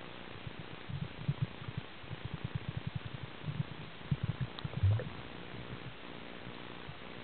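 Muffled low knocks and rumbling of water moving around an underwater camera, a quick irregular run of them through the middle, loudest about five seconds in.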